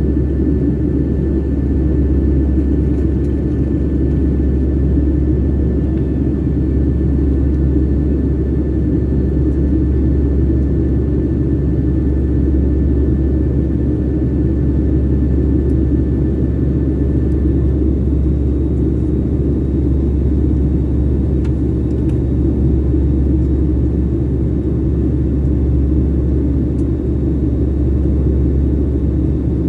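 Steady low rumble of a jet airliner's engines and airflow, heard from inside the passenger cabin in flight. A faint, high, thin tone sits in the background and fades out a little past halfway.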